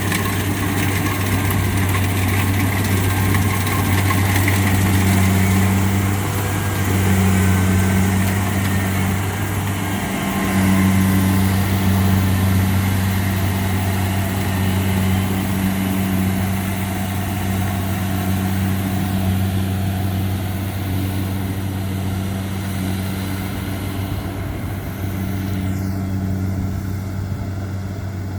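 Engine of rice-harvesting machinery working a flooded paddy, running steadily with a deep, constant hum and small swells in level.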